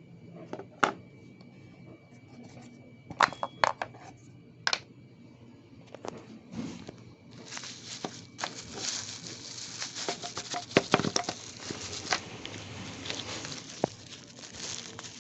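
Hand handling noises: a few sharp clicks and taps in the first five seconds, then a long stretch of dense crinkling and clicking.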